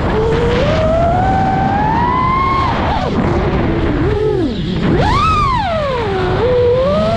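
iFlight DC5 FPV freestyle quadcopter's motors and propellers whining, the pitch following the throttle. It climbs slowly, drops about three seconds in, surges sharply about five seconds in, dips, then settles into a steady tone near the end.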